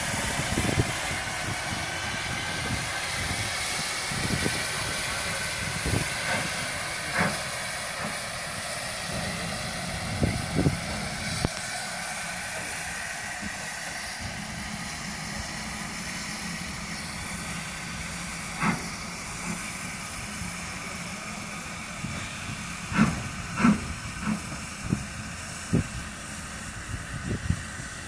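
Steady hiss of escaping steam from the ex-Lancashire & Yorkshire Railway 0-6-0 steam locomotive LMS 12322 as it moves slowly away, the hiss gradually fading. Scattered sharp clanks and knocks cut through it, several in quick succession near the end.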